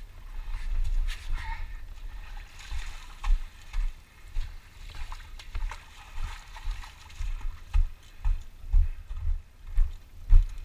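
Water sloshing and splashing with a person's steps through a shallow pool in a sandstone slot canyon, with irregular dull thumps of movement, more of them in the second half.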